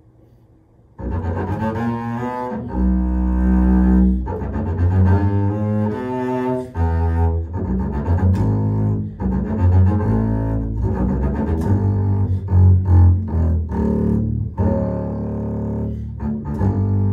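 Solo double bass played with the bow, starting about a second in: a quick passage of changing notes with a few short breaks between phrases.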